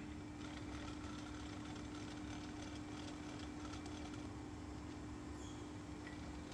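Faint metallic clicking and scraping as the jaws of a three-jaw lathe chuck are worked in and out while the chuck key turns the scroll, busiest over the first four seconds and sparser after. A steady hum runs underneath.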